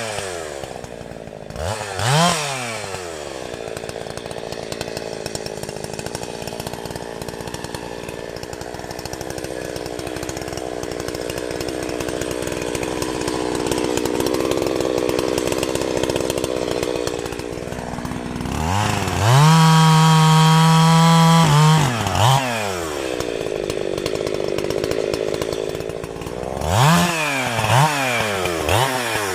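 Two-stroke chainsaw running while cutting trees. It gives quick throttle blips, then settles into a long stretch at a lower pitch. About two-thirds through it revs high and steady for a few seconds, and it blips the throttle again near the end.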